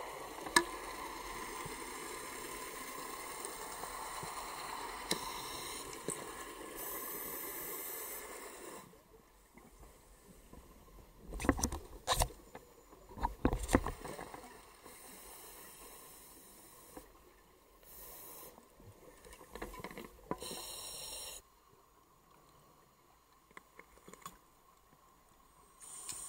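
Scuba diver's breathing through a regulator, picked up underwater by the camera: a long rush of exhaled bubbles for about the first nine seconds, then a cluster of loud knocks and several short hisses of inhalation.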